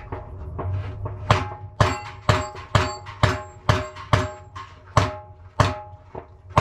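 Rapid gunfire: about ten shots in quick succession, roughly two a second, starting about a second and a half in.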